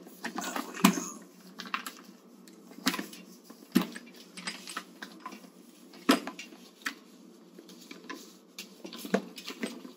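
Irregular light clicks and knocks with soft rustling, from handling a washcloth and bath supplies while washing a leg during a bed bath.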